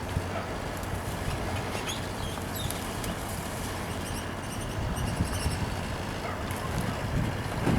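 Steady low engine-like hum under a noisy outdoor background, with a few faint high chirps of small birds near the middle and some low thuds near the end.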